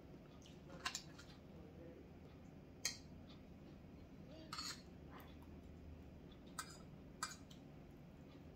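Eating utensils clinking against dishes, about five separate sharp clinks spaced a second or two apart, over a faint steady low hum.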